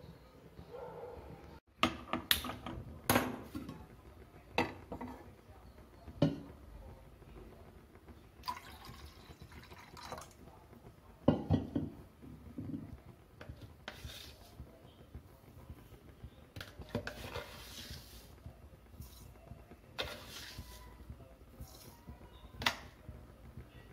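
Metal pans and utensils clinking and knocking on a gas stovetop, with stretches of liquid sounds as milk is poured and tea is made. The sharp knocks bunch in the first half and again near the middle; the liquid stretches come later.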